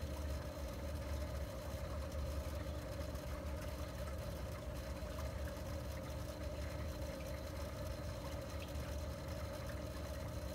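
Aquarium filter pump running: a steady low hum with a constant watery hiss and a faint high whine.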